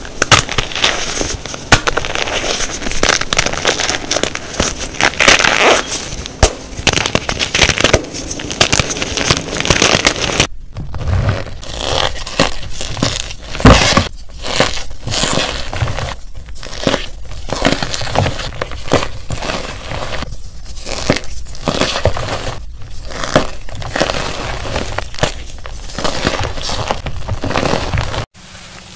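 Hands crushing soft blocks of gym chalk and cornstarch: a dense run of crunching and crumbling. About ten seconds in it changes to sparser, separate crunches.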